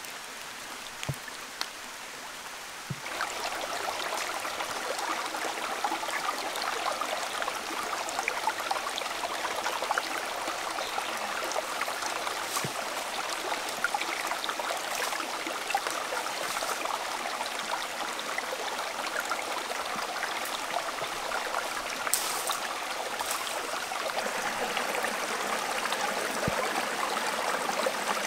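Water of a shallow rocky stream flowing steadily. It comes in louder about three seconds in, after a fainter patter of water.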